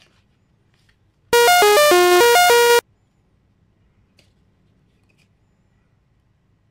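A short synthesized jingle: a quick run of bright, ringtone-like electronic notes stepping up and down, lasting about a second and a half and cutting off suddenly.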